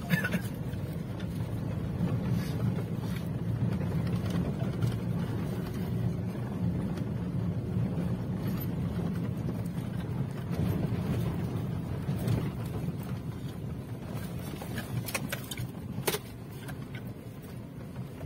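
Inside the cabin of a Toyota Hilux Revo pickup driving slowly over a rutted dirt track: a steady low engine and road rumble, with a few short knocks, most of them about fifteen to sixteen seconds in, and the rumble easing off near the end.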